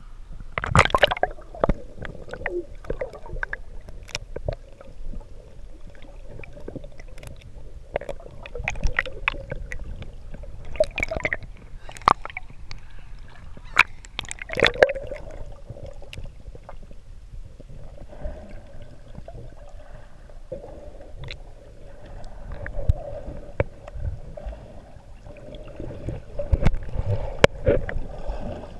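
Water sloshing and gurgling around a camera bobbing at the sea surface and dipping under it, with irregular sharp splashes and a steady hum underneath.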